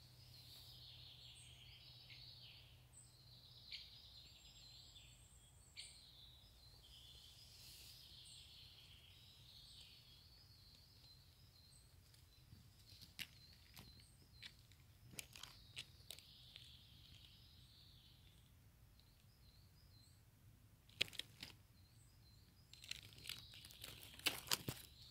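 Faint birdsong from woodland birds, many short chirps for roughly the first half, with dry twigs and leaves crackling and snapping now and then and in a thicker cluster near the end as the undergrowth is pushed aside.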